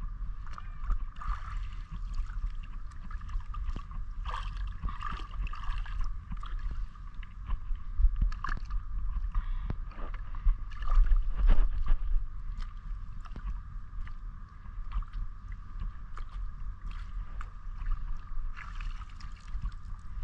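Shallow seawater splashing and sloshing in irregular bursts as a person wades through it and handles a fishing net, over a constant low rumble on the microphone.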